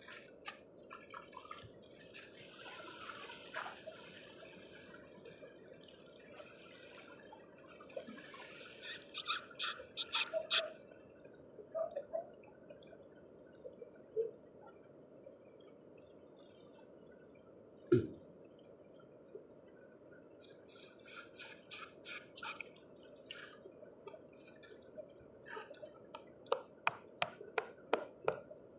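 Small sharp clicks and taps as sisi, small rock oysters, are picked and pried off a rock by hand. Near the end a stone knocks against the rock in a quick run of taps to break shells loose.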